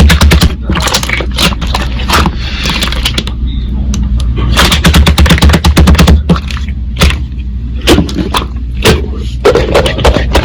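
Slime being squished and pressed by hand, giving quick runs of sharp clicking pops over a steady low hum.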